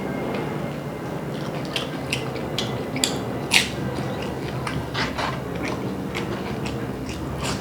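Close-up chewing and biting of crunchy food, with irregular crisp crunches and wet mouth clicks.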